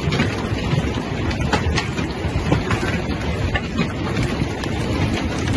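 Heavy hail pelting down onto lake water and a stone terrace: a dense, steady rush of noise packed with many sharp individual hits, with wind underneath.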